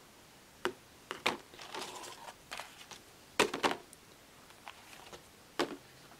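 Cardboard player boards being handled and laid down: a few sharp taps and knocks with brief rustling between them, the loudest pair about three and a half seconds in.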